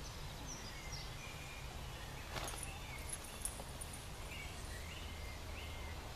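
Meadow ambience with songbirds calling in short chirps and quick rising and falling notes, over a steady low rumble. A brief tap sounds about two and a half seconds in.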